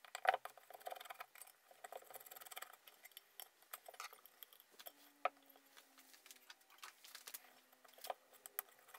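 Light clicks and small metallic rattles as the electric motor's end bell and its switch housing and wiring are handled and worked with a screwdriver, with one sharper click about five seconds in.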